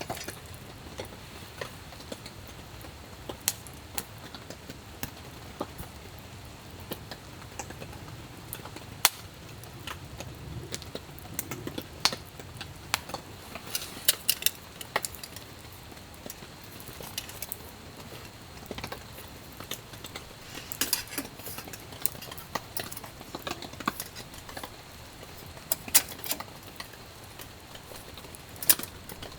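Irregular light clicks and clinks of small hard objects, bunched around the middle and near the end, over a quiet steady background.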